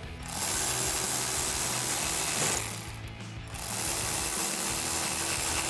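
Milwaukee cordless electric ratchet with a T15 Torx bit running two Torx bolts down. It runs in two spells of about two seconds each, with a short pause between them.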